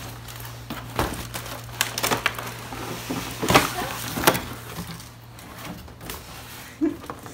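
Handling noise: irregular sharp knocks and crackles, loudest about three and a half and four and a quarter seconds in, over a steady low hum.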